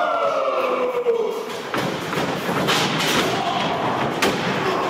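Wrestling ring action: a long falling tone at the start, then a few sharp thuds from the wrestlers' strikes and footfalls on the ring's canvas-covered boards.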